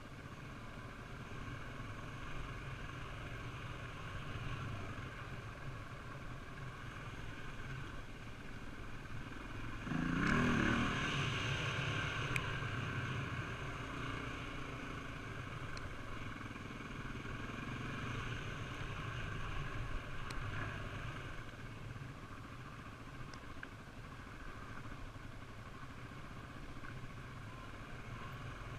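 Honda XR400 dirt bike's four-stroke single-cylinder engine running steadily under way on a dirt trail, heard from a helmet-mounted camera. About ten seconds in it gets louder for a couple of seconds.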